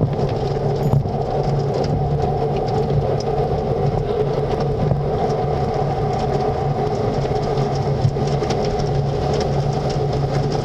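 Conveyor tunnel car wash heard from inside the car: a steady low hum of wash machinery with water streaming over the windshield.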